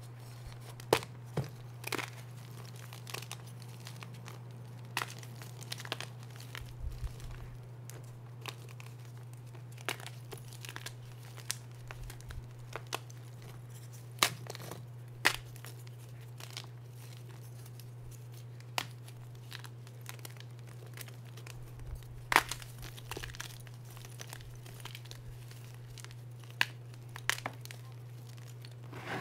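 Reformed gym chalk blocks crumbled and crushed by hand in a pile of broken chalk: irregular glassy crunches and crackles, a few sharply louder snaps among softer grinding. A steady low hum runs underneath.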